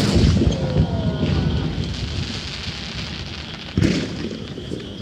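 Aerial firework shells bursting: a loud boom right at the start that rumbles and echoes as it dies away, then a second sharp bang about four seconds in.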